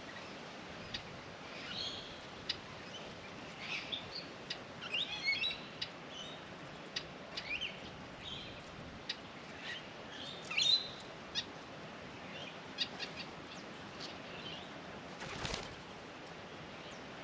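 Wild birds chirping and calling in short, scattered notes, with sharp ticks between them and one brief rush of noise near the end.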